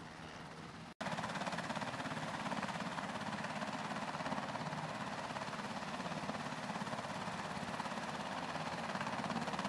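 UH-60 Black Hawk helicopter idling on the ground with its rotors turning: a steady engine-and-turbine noise with a rapid, even chop from the rotor blades. The sound drops out for an instant about a second in, then comes back louder and steady.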